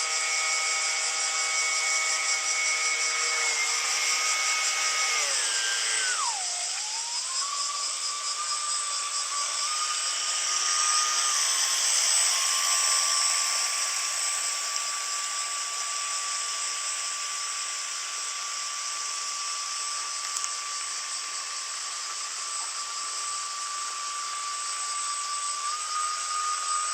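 Motor of an RC jetfoil model whining. The pitch drops sharply about five seconds in, as if the throttle is eased, then settles into a steady whine over a constant high hiss.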